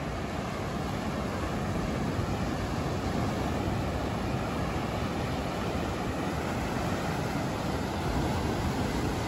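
Sea surf breaking on a beach and against breakwater rocks, a steady rush of noise, with wind rumbling on the microphone.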